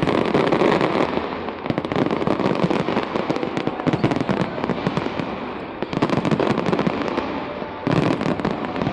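Fireworks display: a dense, continuous rattle of bangs and crackles, swelling again about six and again about eight seconds in.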